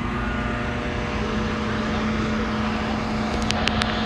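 Mobile crane's diesel engine running steadily, a constant drone with a held hum.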